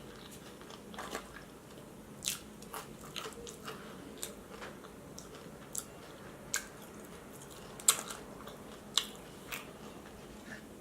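Close-up chewing and biting of breaded vegan chicken nuggets and tater tots: a person's wet mouth sounds with irregular sharp crunches and clicks every second or so.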